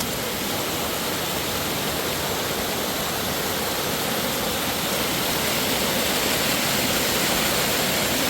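Underground waterfall in a mine: a steady rush of falling water, growing a little louder about five seconds in.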